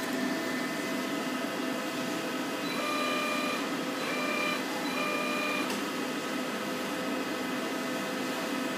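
1994 Wasino TH-10 CNC turning center running with a steady machine hum, and three short whines of one steady pitch about three, four and five seconds in as its servo motors drive the tool turret along an axis.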